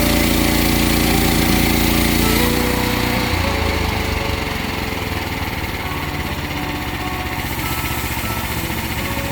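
Small gasoline engine of a portable band sawmill running steadily. Its tone drops and changes about three seconds in.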